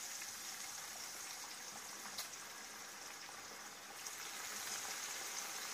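Marinated chicken leg pieces deep-frying in hot oil in a karahi, the oil sizzling with a steady hiss.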